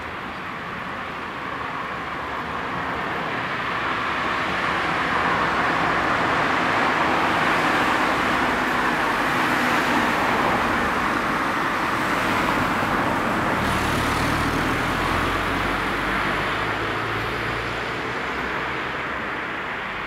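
A car passing on the street: its tyre and engine noise slowly swells to a peak about halfway through and then fades. A lower engine rumble follows in the second half.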